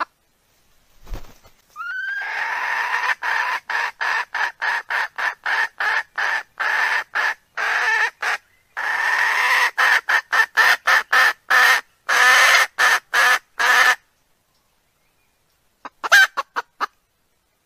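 Recording of a wild rooster's call played as a lure for wild cocks. A long, high call with a rising start is chopped into many short pieces by brief gaps of silence and stops about 14 seconds in. A short burst of the call comes again near the end.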